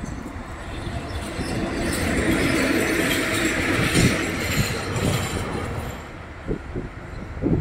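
A pair of ET22 electric freight locomotives, running light, passes close by: the rumble and rush of their wheels on the rails swells to a peak a few seconds in, then fades as they draw away. A couple of dull thumps come near the end.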